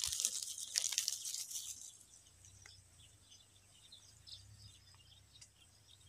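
A plastic bag crinkling as ground toasted rice is shaken out of it into a steel bowl, fading out after about two seconds. Then only faint outdoor background with a few small high chirps.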